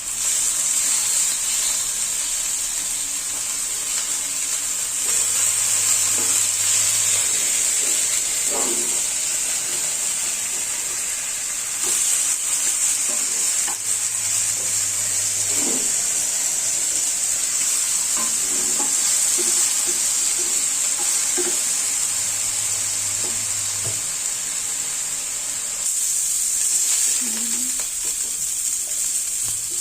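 Food sizzling as it fries in a pan: a steady, loud hiss.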